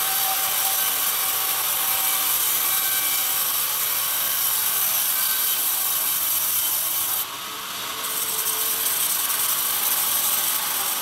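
Band sawmill blade cutting lengthwise through a pine plank, a steady, loud rasping hiss. The sound drops for under a second about seven seconds in, between passes, then the blade is back in the wood.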